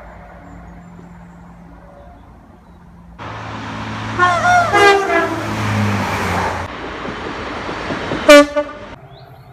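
Cut-together clips of trains: a low steady train hum, then louder passing-train noise with a train horn sounding about four seconds in. Near the end comes a very loud, short horn blast.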